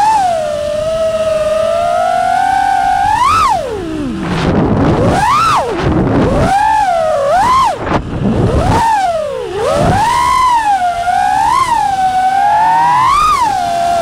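FPV freestyle quadcopter's motors and propellers whining, the pitch sliding up and down with the throttle. Twice, about four seconds in and again just before ten seconds, the pitch drops low and rough, then climbs back.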